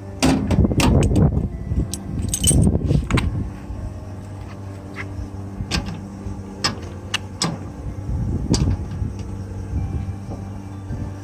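Irregular metallic clinks and clattering, heaviest in the first three seconds and again a few times later, over a steady low hum.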